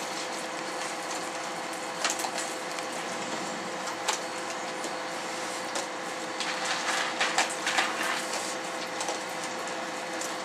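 Raccoons crunching dry dog food kibble: sharp crunches about two and four seconds in, and a busier run of crunching and clicking in the second half. A steady electrical hum runs underneath.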